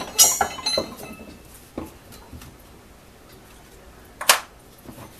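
Steel rotary hammer drill bits clinking and ringing against each other as they are picked up and set down on a metal workbench, with a single sharp clack about four seconds in.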